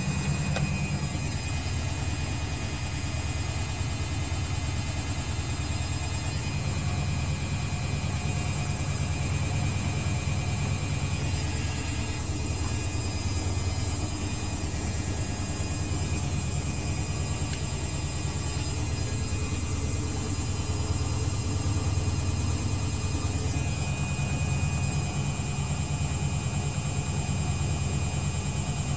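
Luxor WM 1042 washing machine spinning at 600 rpm with an unbalanced load, a steady low drone.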